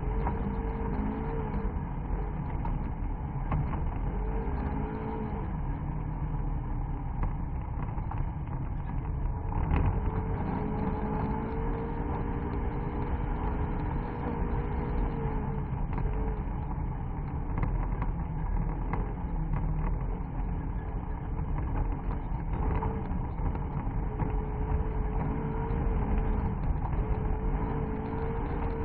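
A vehicle's engine running under load, its pitch rising and falling several times over a steady rumble of tyres on a rough dirt track, heard from inside the vehicle. Short knocks from the bumpy surface come through now and then, one harder about ten seconds in.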